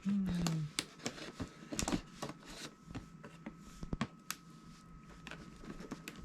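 Cardboard and plastic packaging being handled during an unboxing: scattered sharp clicks, taps and light rustles. A brief low tone falls in pitch right at the start and is the loudest sound.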